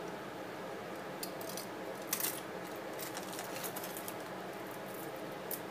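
Costume jewelry being handled: small plastic gems and metal chains clicking and jingling against each other in a string of light taps, over a steady background hiss.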